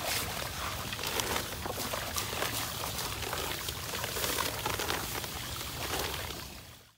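Granulated pool salt pouring from a bag in a steady stream into pool water, a continuous hissing splash that fades out near the end.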